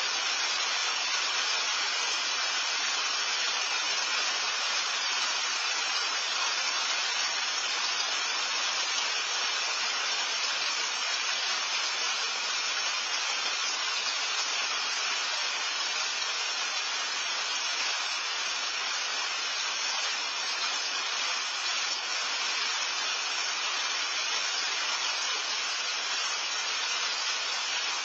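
Steady rain falling, heard as an even hiss through a patio security camera's microphone.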